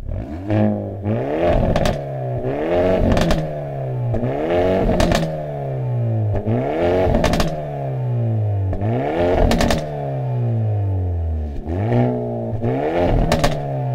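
Hyundai Elantra N's 2.0-litre turbocharged four-cylinder, through its factory exhaust in N mode, revved repeatedly while standing: about eight quick climbs in revs, each dropping away more slowly, with bursts of sharp cracks from the exhaust near the top of most revs.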